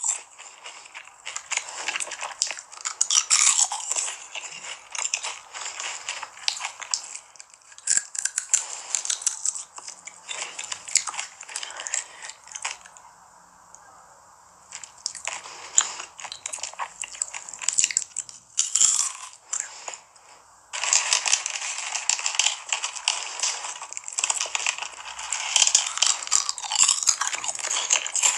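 A person biting and chewing food, with crisp crunching and wet mouth sounds in clusters. It eases off for a couple of seconds around the middle and turns dense and continuous for the last several seconds.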